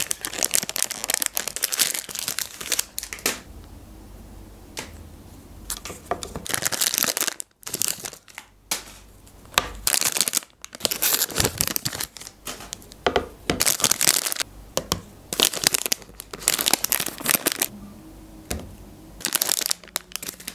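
Plastic ice-cream bar wrappers crinkling and tearing as they are peeled open and handled, in repeated bursts of crackling with short pauses between.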